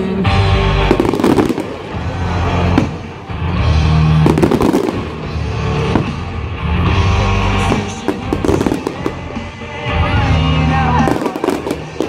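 Fireworks bursting with bangs and crackles over loud music with a repeating bass line.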